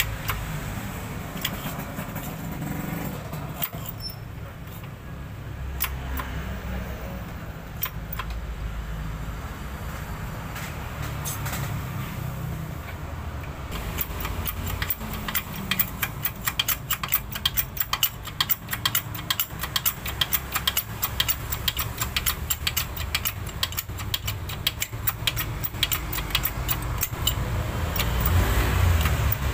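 A hydraulic shop press forcing the gears onto an AMR 500 supercharger's shafts. Light metallic clicking and ticking starts about halfway through and comes fast and dense, over a low steady rumble.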